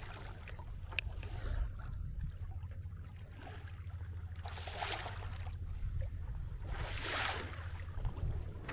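Water rushing along a sailing yacht's hull as it moves under way, swelling in three washes a couple of seconds apart over a steady low rumble, with one sharp click about a second in.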